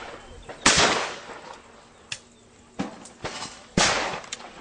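Shotguns firing at a sporting clays (FITASC) course: two loud reports about three seconds apart, each with a short echoing tail, and fainter shots or pops in between.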